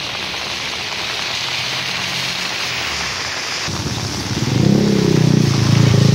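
Steady hiss of heavy rain. About four seconds in, a motorcycle engine passes close by, louder than the rain, its pitch rising and bending as it goes.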